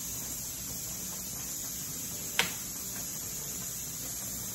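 Faint steady hiss from a pressure canner's open vent pipe, its weighted regulator just lifted off, as the last of the pressure vents out; one sharp click about two and a half seconds in.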